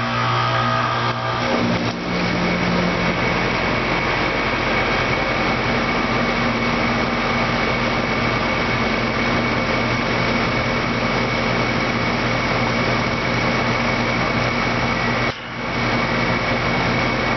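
Goodman central air-conditioning system starting up in cool mode and running steadily, with a low hum and a faint high whine. The sound dips briefly about fifteen seconds in.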